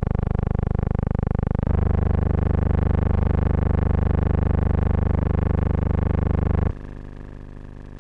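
A loud steady buzzing drone of several held pitches, like an organ or synthesizer chord, that shifts abruptly about two seconds in and drops to a much quieter hum near the end.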